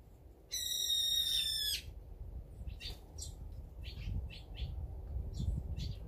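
Wild songbirds calling: one bird gives a loud, shrill call lasting just over a second and falling slightly in pitch, then short high chirps from small birds follow one after another.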